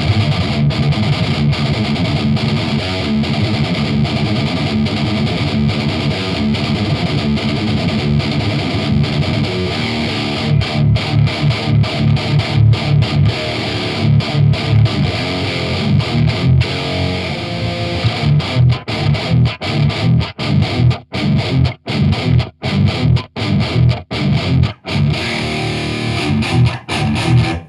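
Heavily distorted electric guitar riffing: a Solar A2.6 with a Duncan Solar pickup played through a Randall RG100HT amplifier with an MXR 6-band EQ and Furman PQ4 in front. The playing is sustained at first, then from about ten seconds in turns to short chugs broken by brief stops, with the stops coming more often near the end. The tone is a little dull, without as much high end.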